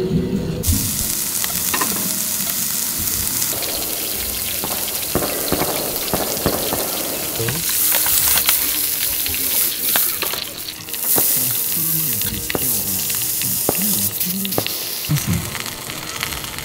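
A sausage sizzling in a hot steel pan on a wood-burning stove, a steady frying hiss that swells in the middle, with scattered sharp clicks as metal tongs turn it.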